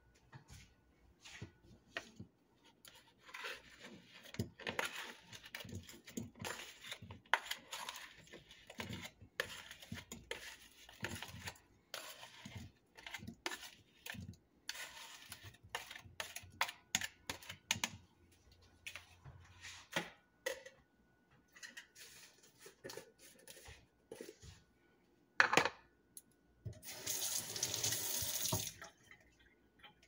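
Kitchen handling sounds: scattered clatter, knocks and scraping as sliced banana is tipped from a bowl into a plastic blender cup. One sharp knock near the end, followed by about two seconds of rushing, water-like noise.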